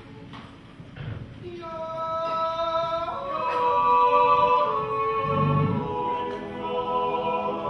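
Men's yodel choir singing a Zäuerli, the wordless Appenzell natural yodel: the choir's sustained chords come in about a second and a half in and swell, with a yodelled lead line over them.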